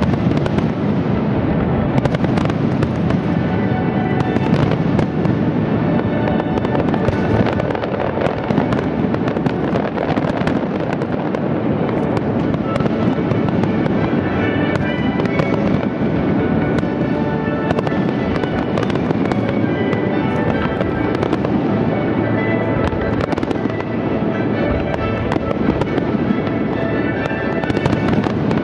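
Aerial firework shells bursting in quick succession, a continuous run of overlapping bangs, with loud music playing along with the display.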